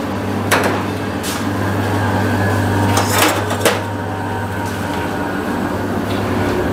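Steady low machine hum, with a few sharp clicks and knocks about half a second, a second and a quarter, three seconds and three and a half seconds in.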